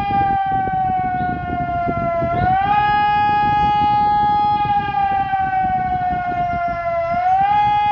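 SES 600 siren sounding a strong steady tone that sinks slowly in pitch and then swings quickly back up, twice, in a cycle of about five seconds. A rough low rumbling noise runs beneath it.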